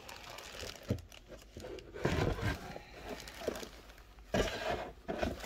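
Plastic packaging crinkling and rustling as a small cordless chainsaw is handled in its cardboard box, with a couple of light knocks.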